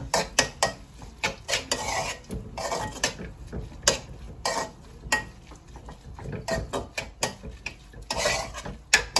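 Metal spoon scraping and clinking against a steel kadai in quick, irregular strokes as beaten egg is stirred into sautéed onions.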